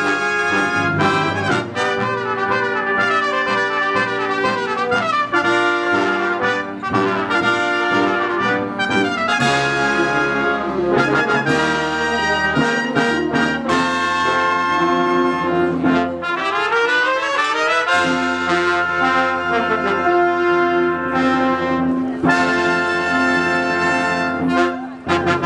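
A symphony orchestra plays a loud, brass-led passage with rising runs. It builds to a long held closing chord that cuts off sharply near the end.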